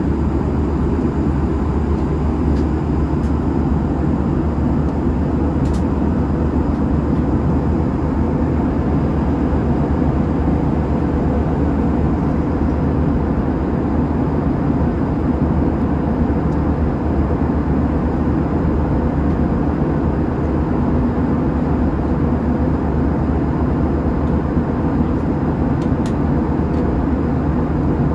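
Steady cabin noise of an Airbus A320 in flight: an even, low rush of engines and airflow heard from a passenger seat, with a faint steady high tone above it.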